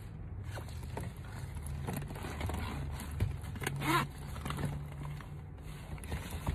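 Faint handling of a small zippered fabric bag: rustling, light scrapes and clicks as it is unzipped and rummaged through, over a steady low hum in a car cabin.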